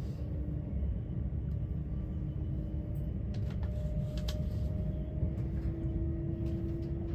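Commuter train running: a steady low rumble with a faint steady whine and a few light clicks.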